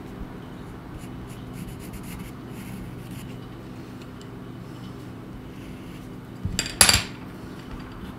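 Pencil sketching on drawing paper: soft, scratchy strokes, with a louder rough rubbing noise for about half a second near the end.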